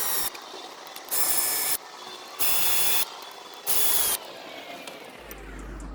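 A ratchet clicking in four quick bursts, about 1.3 s apart, during work on a bicycle's stem and fork. Background music comes in near the end.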